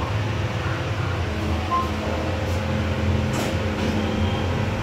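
OTIS hydraulic lift running, with a steady low hum as the car comes up to its floor, a short beep about two seconds in and a click a little later.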